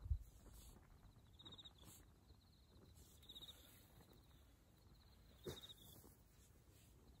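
Near silence with faint outdoor ambience. A soft low thump comes just after the start and a smaller one about five and a half seconds in, with a few faint, brief high chirps now and then.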